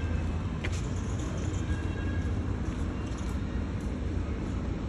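Steady low rumble of street background noise, with a faint click about two-thirds of a second in.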